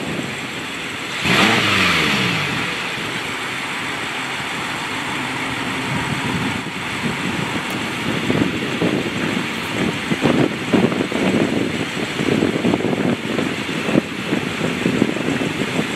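BMW M6 Competition's twin-turbo V8 with a Dinan tuned exhaust blipped once about a second in, the revs falling back quickly, then idling steadily.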